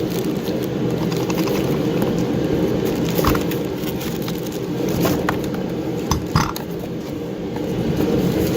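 A space heater running with a steady hum, with a few short clicks and knocks of parts being handled about three, five and six seconds in.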